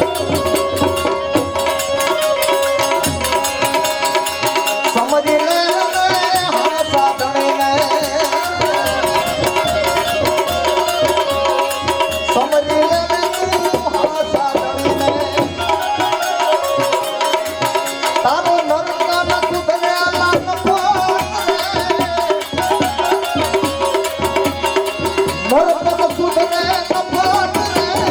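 Instrumental opening of a Gujarati santvani bhajan: tabla drumming under a melodic instrument that plays held notes and sliding phrases.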